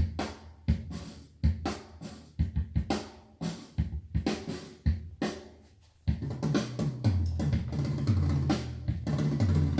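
Recorded music with a drum-kit beat playing through KLH bookshelf speakers driven by a Yamaha RX-V385 receiver. Spaced kick, snare and cymbal hits for about six seconds, then a bass line comes in under the drums.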